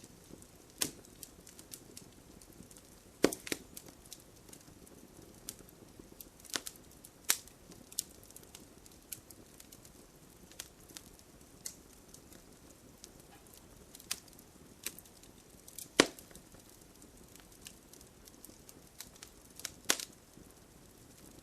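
Wood fire crackling: irregular sharp pops and snaps of burning logs over a low steady hiss, a few louder pops standing out.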